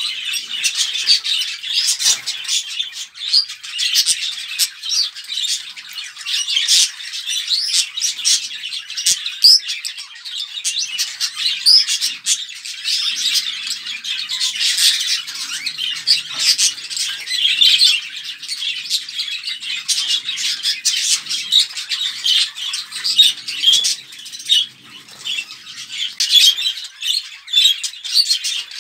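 Budgerigars chattering and warbling without a break, a dense stream of chirps and squawks. This is the kind of flock chatter played to budgies to bring them into breeding condition.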